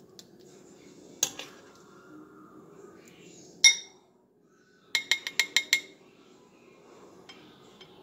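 A spoon clinking against glass dishes while baked beans are spooned from a glass measuring cup into a glass bowl. There is one loud ringing clink just before halfway, then a quick run of about six taps on the glass, like a spoon being knocked clean on the rim.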